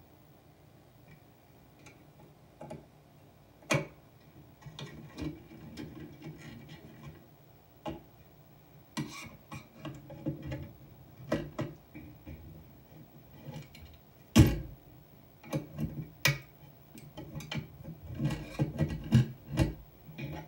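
A string of irregular clicks, taps and knocks with low rustling between them; the loudest knock comes about two thirds of the way through, and they crowd together near the end.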